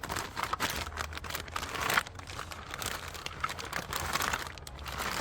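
Plastic packaging crinkling and rustling as it is handled, in irregular bursts that are loudest about two seconds in.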